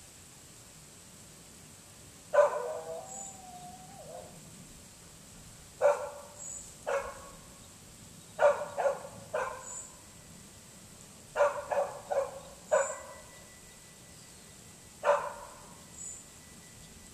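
A dog barking, about a dozen sharp barks in groups of one to four, the first trailing off into a wavering whine.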